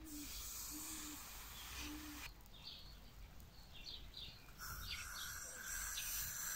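Sizzling hiss of a red-hot knife blade: about two seconds of it, then again from about four and a half seconds as the blade melts into a plastic soda bottle's neck. Small birds chirp in between.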